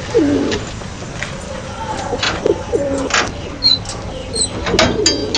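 Domestic pigeons cooing in a loft, several low rolling coos one after another, with a few sharp clicks and a couple of short high chirps.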